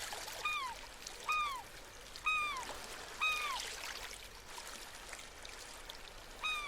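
Short, high calls, each rising slightly then falling, repeated about once a second for four calls, with a fifth after a pause near the end, over a steady hiss like running water.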